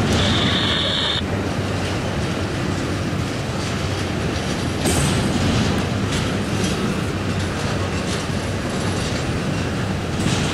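Double-stack intermodal freight cars rolling past close by: the steady rumble and clatter of steel wheels on the rails, with a brief high-pitched squeal from the cars in the first second.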